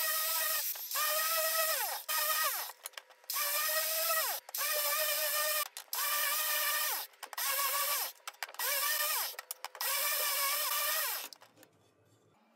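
Handheld angle grinder with a sanding disc running against a wooden board, a steady high whine. Several times the whine falls in pitch and then breaks off suddenly before starting again. It stops about a second before the end.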